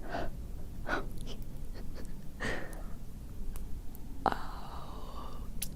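Close-miked mouth sounds of someone eating a chocolate-coated ice cream bar: a few wet chews and lip smacks, with a sharper smack a little over four seconds in.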